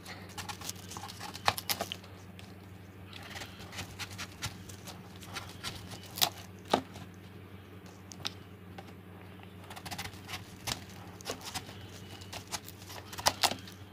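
Small kitchen knife cutting through the firm flesh of a large peeled green mango: irregular crisp slicing strokes and small clicks of the blade, over a steady low hum.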